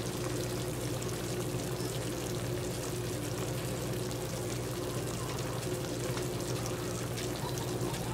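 Pork chops simmering in adobo sauce in a frying pan: steady bubbling with fine, light sizzling crackles, over a steady low hum.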